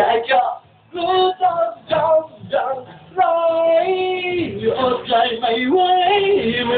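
A young man singing a Thai song in a high voice, phrase by phrase, with a held note about three seconds in.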